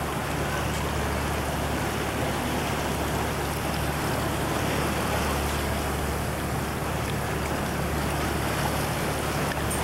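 Tour boat under way: a steady low engine drone under the rush and splash of choppy water along the hull, with some wind on the microphone.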